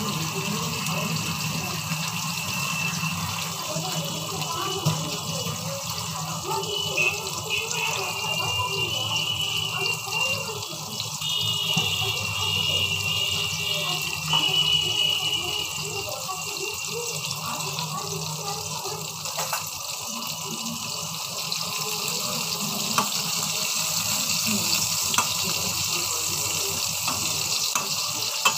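Steady kitchen hiss, like running water or food sizzling in a pan, with a low steady hum underneath and scattered sharp clinks of metal utensils against pans.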